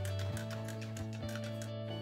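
Background music: held notes over a steady, light beat.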